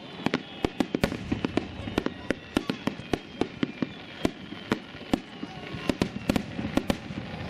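Aerial fireworks shells bursting in rapid, irregular succession: sharp bangs several times a second.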